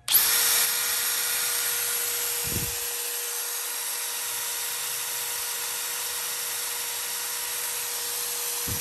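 Bosch GSB18V-535C 18 V brushless cordless hammer drill running free with an empty chuck. It spins up at once as the trigger is squeezed, then holds a steady whine at constant speed.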